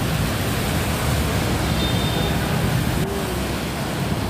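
Heavy rain falling steadily, mixed with cars and motorbikes driving through on a wet road, their tyres hissing.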